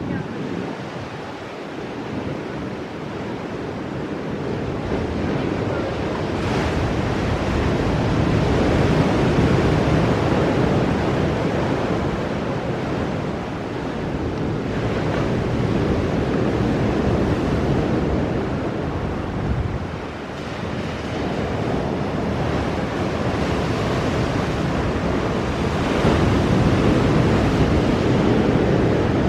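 Ocean surf breaking on a rocky shore: a continuous rushing wash that swells and ebbs as the waves come in, dipping briefly about two seconds in and again about two-thirds of the way through, and rising loudest near the end.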